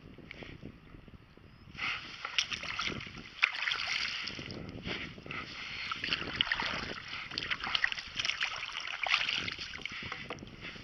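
Water splashing and trickling around a kayak as a paddle works the surface, starting about two seconds in and going on as an irregular patter of small splashes.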